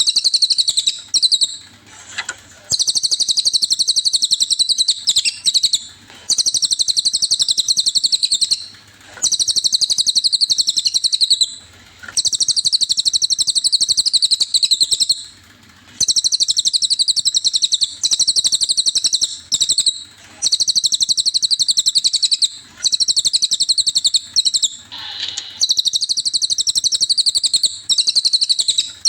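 Cililin songbird singing: a string of loud, fast, high-pitched trilling phrases, each one to three seconds long with short breaks between, recorded as masteran song for training other songbirds.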